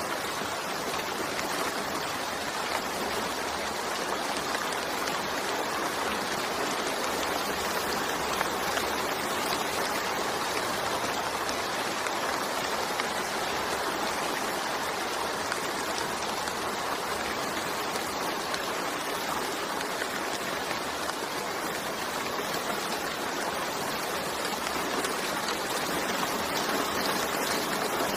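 Steady rainfall: a dense, even hiss of many drops, unchanging throughout.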